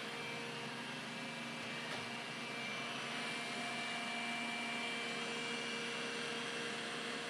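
Robot vacuum cleaner running as it drives across the floor: a steady whir with a few held tones, a high whine among them.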